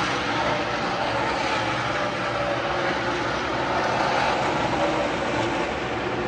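NASCAR stock cars' V8 engines running around the oval, heard as a steady, blended engine drone with no single car passing clearly.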